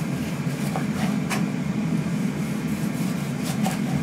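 A kitchen knife slicing tomatoes and tapping the wooden chopping board a few times, over a steady low hum from a running kitchen appliance.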